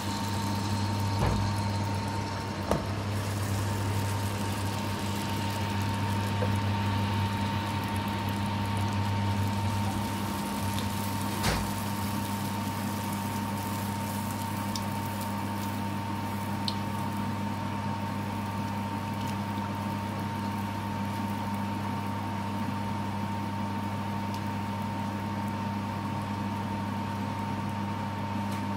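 Handesh batter deep-frying in hot oil in an iron kadai, a steady sizzle under a constant mechanical hum, with a few light knocks of a utensil against the pan early on and near the middle.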